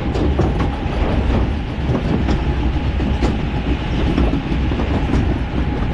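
Log flume boat riding up the lift conveyor: a steady mechanical rumble with irregular clacks and knocks.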